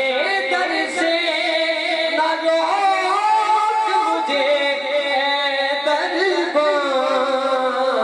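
A man singing devotional verses into a microphone in long, held, gently wavering melodic lines, amplified through the hall's sound system.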